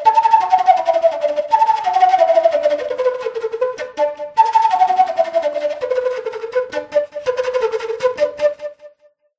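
Bansuri bamboo flute playing a melody in repeated falling phrases, with a short break about four seconds in. The playing trails off near the end.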